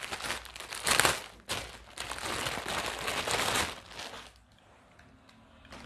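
Clear plastic packaging bag crinkling and rustling as a cloth top is pulled out of it. The crinkling is loudest about a second in and stops after about four seconds.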